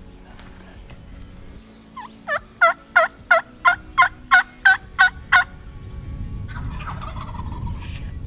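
Wild turkey yelping: a run of about eleven clear, evenly spaced yelps at roughly three a second, starting about two seconds in and stopping after about three seconds.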